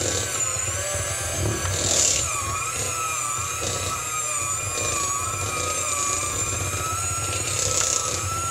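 Electric kitchen mixer running steadily as it beats cake batter, its motor whine wavering slightly in pitch.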